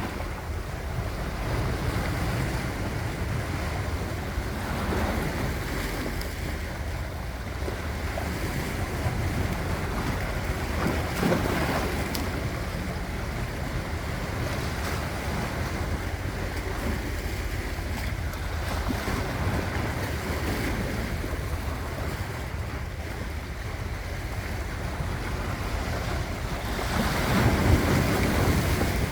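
Sea waves washing ashore in a steady rush of surf, swelling now and then, with the louder wash near the end; wind buffets the microphone.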